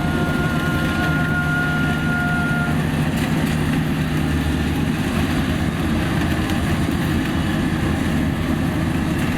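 Diesel engine of a Kubota DC-35 combine harvester running steadily, with a thin high whine over it that stops about three seconds in.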